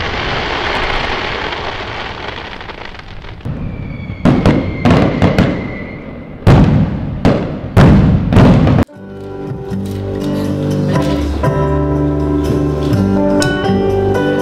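Fireworks bursting and crackling, with a thin whistle and a run of sharp bangs, until a sudden cut about nine seconds in. Then an electronic keyboard plays steady chords, the introduction of a song.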